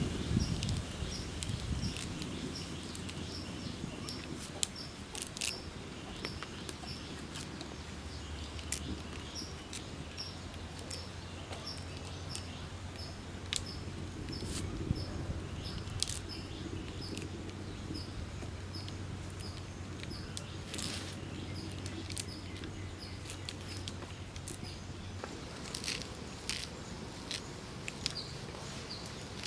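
Rustling and small snaps as moringa leaves are stripped from their stems by hand, with a high chirp repeating steadily a few times a second behind it.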